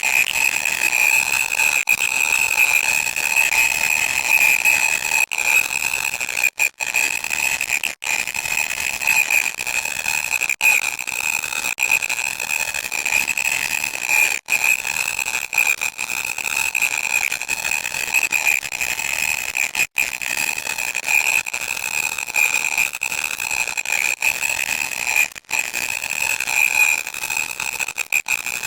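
Loud electronic static: a steady piercing high-pitched whine over crackly hiss, cutting out for a split second every few seconds.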